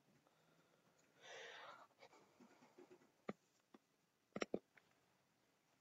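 Near silence in a quiet room: a brief soft hiss about a second in, then a few faint computer-mouse clicks, with a quick pair of clicks a little past the middle.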